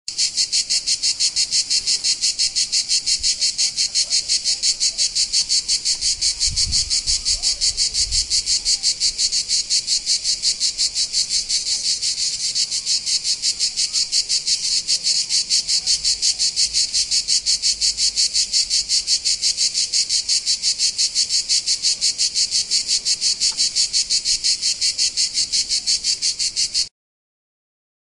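Cicada buzzing: a loud, high-pitched drone that pulses rapidly and evenly, then cuts off abruptly near the end.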